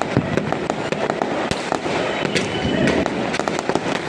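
Firecrackers and fireworks going off all around for Diwali: a dense, irregular string of sharp cracks and pops over a continuous crackling din.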